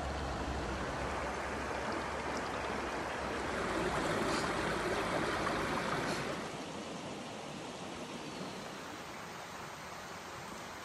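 Stream water rushing steadily, a little quieter after about six seconds in.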